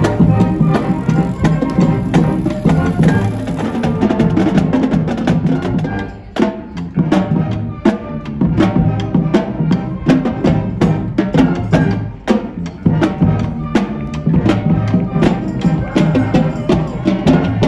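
A student percussion ensemble playing a tune on mallet keyboard instruments and bass drums: struck wooden-bar notes over regular drum hits.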